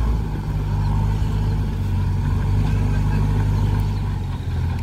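Heavy diesel engine of a backhoe loader, tractor or dump truck running steadily at constant speed.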